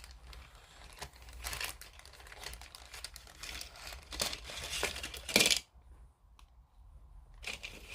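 Small plastic model-kit parts being handled on a workbench: light clicks, taps and rustling, with one sharper click about five seconds in, then a brief lull.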